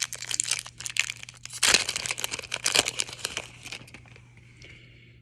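Plastic foil wrapper of a Tim Hortons hockey card pack being torn open and crinkled in the hands, a dense irregular crackle that fades out near the end. A faint steady low hum lies underneath.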